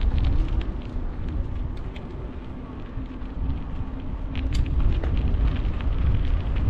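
Wind buffeting the microphone in an uneven low rumble that grows louder in the second half, with a faint steady hum and scattered faint ticks under it.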